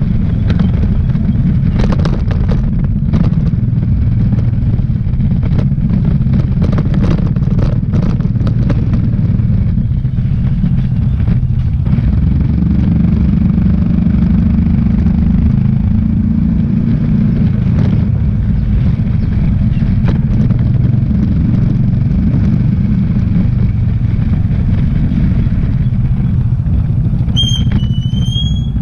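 Motorcycle engine running under way, with road and wind noise and scattered knocks and rattles in the first half. The engine picks up briefly about halfway through, and a short high squeal comes near the end as the bike slows at a gate.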